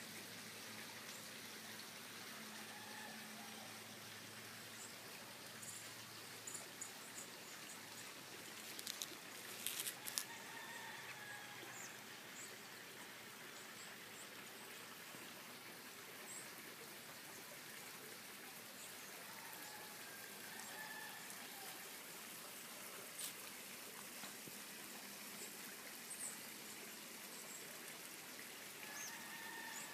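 Faint rooster crows, repeated several times, over a steady background hiss. A few sharp clicks about ten seconds in are the loudest sounds.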